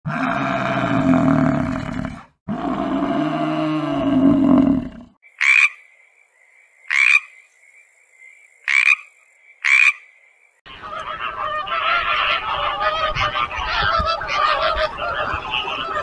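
A buffalo gives two long, low calls. Then a frog calls four times, a second or so apart, over a thin steady high tone. From about ten seconds in, a flock of flamingos keeps up a dense honking chatter.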